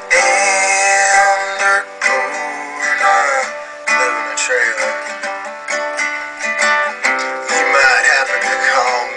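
A man singing a country song while strumming an acoustic guitar.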